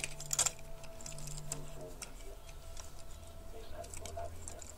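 Scattered light clicks and taps as small toy garbage trucks are handled and turned over on a cloth surface, the sharpest about half a second in, over a faint steady hum.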